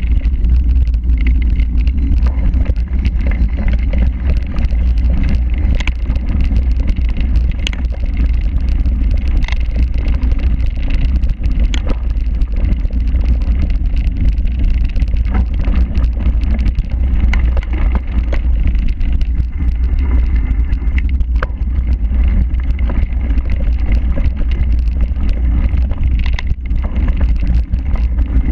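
Cyclocross bike riding fast over a rough grass and dirt course, heard through an action camera on the bike: a steady, heavy low rumble of wind and ground vibration, with many small clicks and rattles from the bike.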